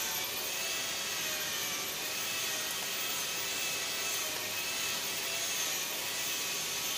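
Steady, unbroken machine hiss and whir with a faint high whine running under it.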